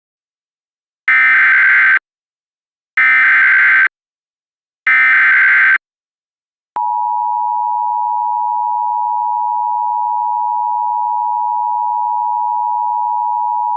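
Emergency Alert System header: three short screeching bursts of digital SAME data, each just under a second, about a second apart. Then, about seven seconds in, the steady two-tone EAS attention signal (853 and 960 Hz) starts and holds, heralding a severe thunderstorm warning.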